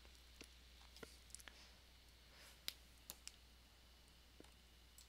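Faint, scattered clicks of a computer mouse and its scroll wheel, about eight in five seconds, the sharpest near the middle, over near silence with a low steady hum.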